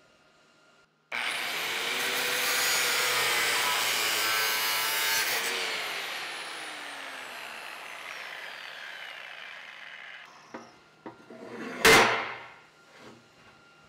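Angle grinder starting up and grinding on steel, then switched off, its pitch falling as the disc winds down. A single loud metal clank comes near the end.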